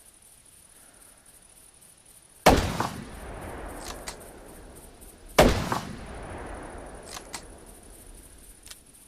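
Blaser R8 straight-pull bolt-action rifle in 6.5x55 Swedish firing two shots about three seconds apart, each followed by a long echoing tail. Pairs of lighter clicks follow each shot as the bolt is worked.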